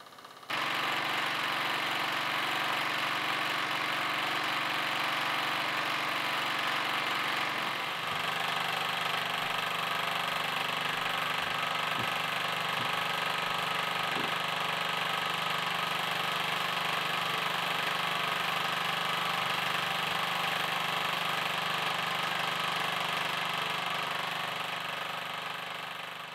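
Wilesco D20 model steam engine running steadily under steam. Its sound shifts slightly about eight seconds in and fades out near the end.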